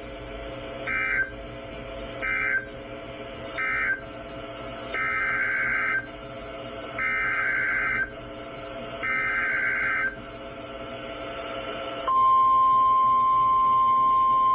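Emergency Alert System SAME data bursts, the warbling digital code: three short end-of-message bursts, then three longer header bursts for the next warning. About twelve seconds in, a single steady, louder alert tone starts, the NOAA Weather Radio 1050 Hz warning alarm.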